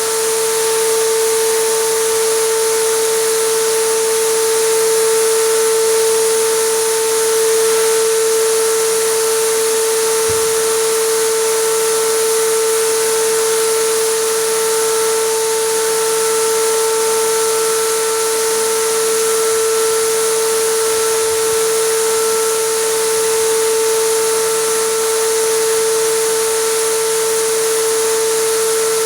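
Compressed-air spray gun hissing steadily as it sprays solvent-based acrylic resin, over the steady whine of the air compressor running.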